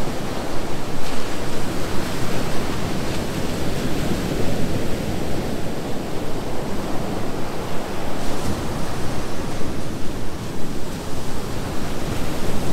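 Rough ocean surf breaking and washing up over the shallows: a continuous rush of waves.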